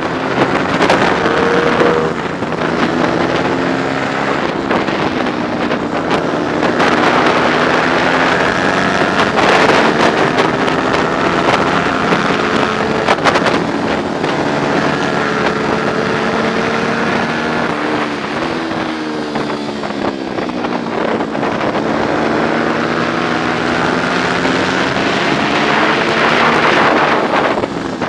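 125 cc four-stroke racing motorcycle engine at high revs, its pitch repeatedly rising and falling as it speeds up and slows, with heavy wind noise on the microphone.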